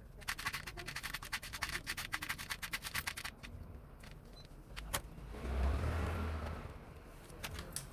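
Screws being driven into a laptop's plastic case: a quick, even run of clicks for about three seconds, a single click near five seconds, then a short whirr.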